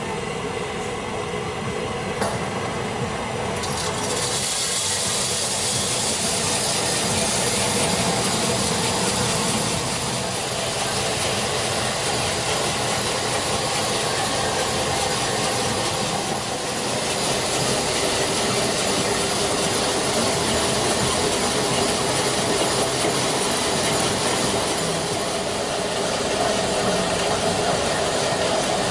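Stronghold coffee roaster running, green beans tumbling in its rotating drum over a steady fan hiss. The hiss grows louder about four seconds in.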